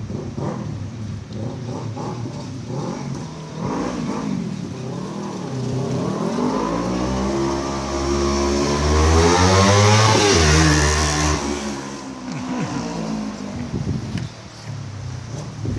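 Kawasaki Ninja 300 parallel-twin engine with its exhaust fully open, revving in short blips. It then grows louder, is loudest about ten seconds in, and fades, as if riding past.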